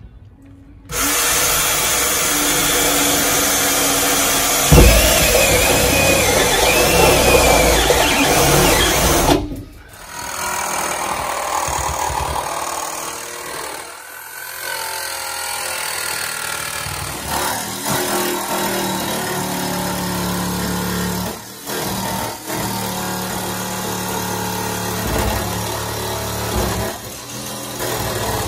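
A cordless drill bores through the van's sheet-steel roof, a loud grinding with a wavering whine. It stops about nine seconds in. A corded jigsaw then cuts the square fan opening in the steel roof, a steady rasping run broken by a few short pauses.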